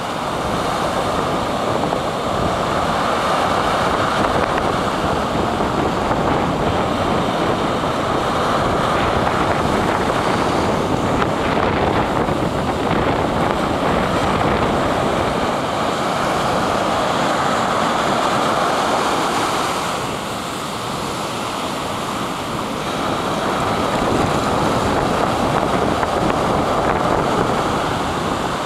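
Ocean surf: foaming waves breaking and washing up over the sand, a loud steady rush that eases briefly about two thirds of the way through, with wind buffeting the microphone.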